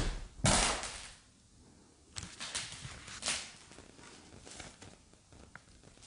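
A loud sudden noise about half a second in that fades quickly, then a few fainter knocks and taps.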